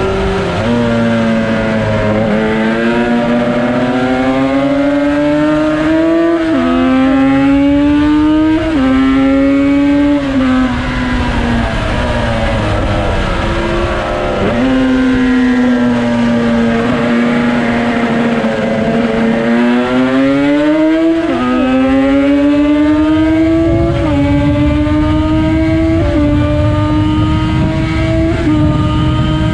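Yamaha RD350 two-stroke twin in a Cagiva Mito racing motorcycle, revving up through the gears on track. The pitch climbs and drops sharply at each upshift, a few seconds apart. Through the middle the revs fall away and hold lower for several seconds, then the engine pulls up through the gears again near the end.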